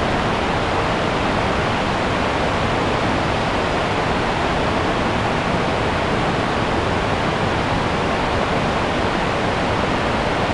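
River rapids rushing over rocks: a steady, even wash of white water.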